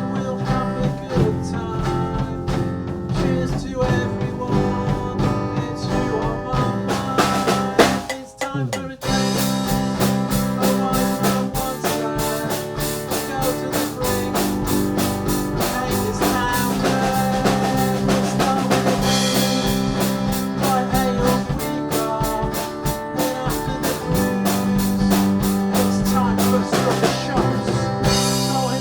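Rock band music with drum kit and guitar, the beat marked by regular drum hits; the band drops out briefly about eight seconds in, then comes back in fuller.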